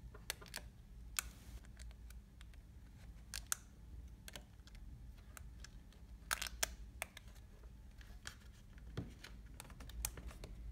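Scattered small plastic clicks and taps as flat ribbon cables are pressed and seated into their connectors on a car stereo head unit's display board, over a faint low hum.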